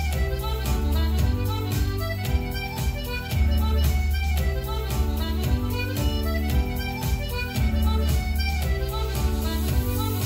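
Irish step-dance tune led by fiddle, played as recorded accompaniment with a steady, driving beat and sharp clicks in time with it.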